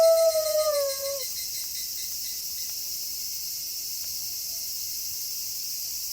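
A wolf's long howl, held on one pitch, falls away and ends about a second in. A steady chorus of crickets carries on underneath and after it.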